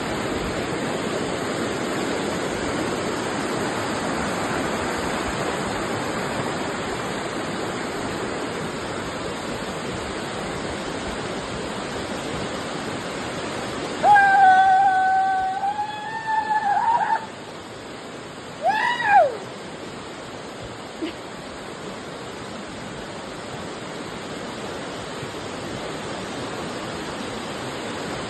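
Waterfall rushing steadily. About halfway through, a voice gives a long held call over it, and a few seconds later a short call that rises and falls.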